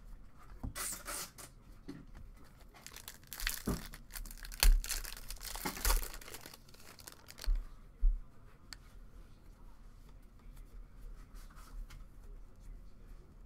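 Foil wrapper of a Topps retail baseball card pack being torn open and crumpled in a few crackling bursts over the first half, with several dull bumps, the loudest about halfway through. Afterwards, faint ticks of cards being flipped through by hand.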